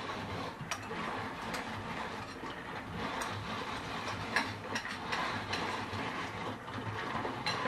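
Red hand-cranked rotary nut grinder turned steadily, grinding walnut kernels for baklava filling: a continuous mechanical rattle and grind with scattered sharp clicks.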